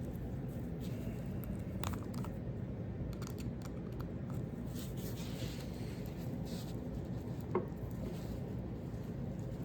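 A few light clicks and faint scrapes of small metal parts of a Buck Spitfire folding knife being handled during disassembly, one sharper click near the end, over a steady low hum.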